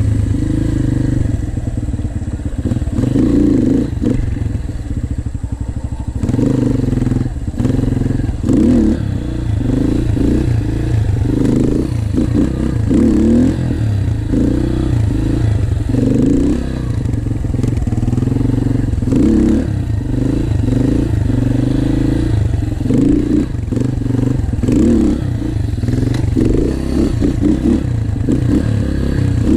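Yamaha TT-R125 dirt bike's single-cylinder four-stroke engine running while being ridden, its note rising and falling again and again with the throttle.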